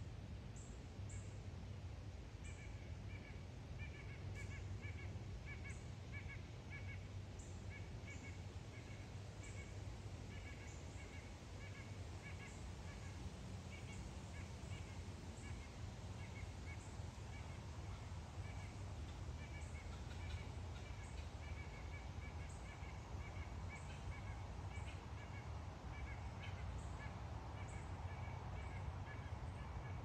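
Birds calling in woodland: many short calls repeated in quick runs, with scattered brief high chirps, over a steady low rumble.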